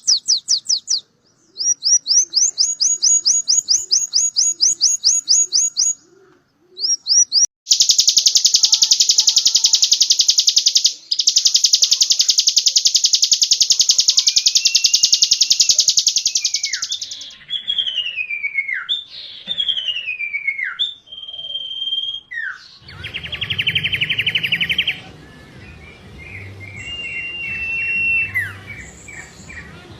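Small songbird singing fast, tightly packed trills of high repeated notes, with one long unbroken trill in the middle, then a few short falling whistles. Near the end a short buzzing trill sounds over a noisier background.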